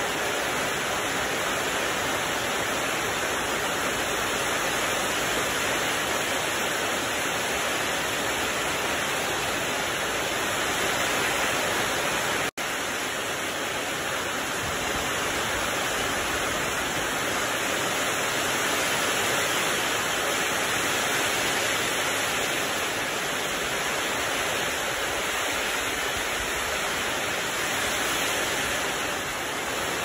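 Heavy rain pouring onto trees, leaves and grass: a steady, even hiss that cuts out for an instant about twelve seconds in.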